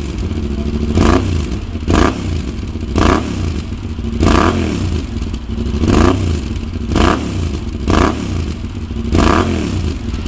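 Yamaha MT-07's 689 cc parallel-twin engine breathing through a GPR GP Evo 4 Poppy slip-on exhaust, revved in about eight short throttle blips roughly one a second. Each blip rises and falls in pitch, and the engine drops back to idle in between.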